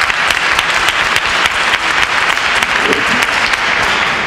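Audience applauding, a dense, steady patter of many hands clapping that begins to ease off near the end.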